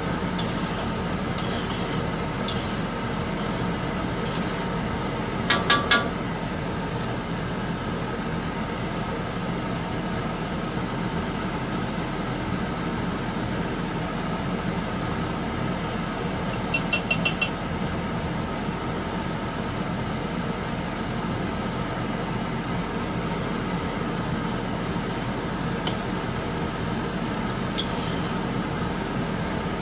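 A metal kitchen utensil rapped three times in quick succession against a wok, about five seconds in and again about seventeen seconds in, over a steady hum and simmer from beef fat cooking in water in the wok.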